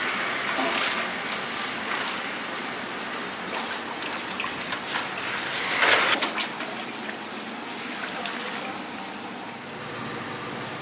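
Water running and trickling as soaked black soybeans are rinsed and drained, with a hose running into a steel pot and water dripping through a plastic colander. The water is louder for a moment about six seconds in.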